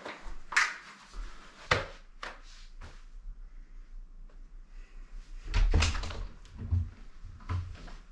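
Scattered clicks, knocks and low thumps of someone handling things and moving about a small room, with a denser run of thumps and clatter about two-thirds of the way through as a door is opened.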